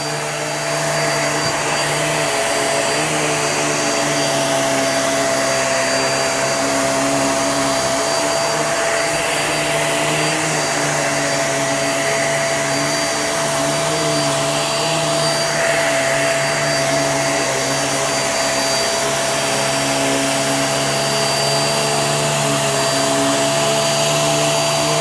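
Hoover React QuickLift bagless upright vacuum cleaner running continuously as it vacuums a heavily soiled rug: a steady rushing motor-and-airflow noise with a constant high whine, swelling slightly now and then.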